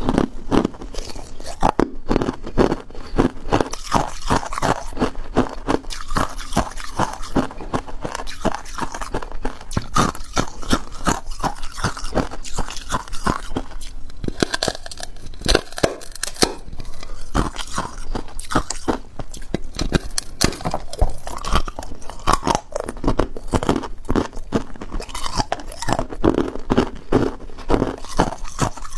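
Close-miked crunching of hard ice being bitten and chewed in the mouth, a rapid run of crisp crunches throughout.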